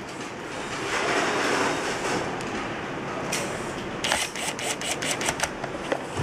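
Handheld electric screwdriver driving screws into a plastic housing. A stretch of motor noise is followed, about four seconds in, by a quick run of sharp clicks.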